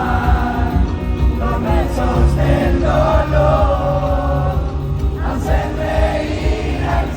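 Live rock concert music: a band plays under heavy bass with sung vocals, and crowd voices sing along.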